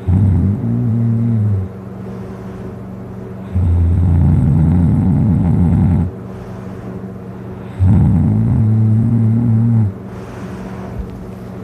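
Heavy snoring from a man passed out drunk on his back: three loud, deep snores of about two seconds each, one every four seconds or so, over a steady low hum.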